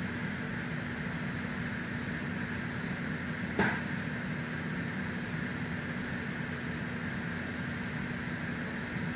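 Steady mechanical hum with a constant low tone and a hiss over it, like room machinery running. A single sharp click about three and a half seconds in.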